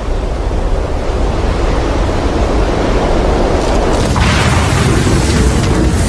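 Low rushing roar of an airliner coming down, a Boeing 707, growing steadily louder, with a harsher hiss joining about four seconds in.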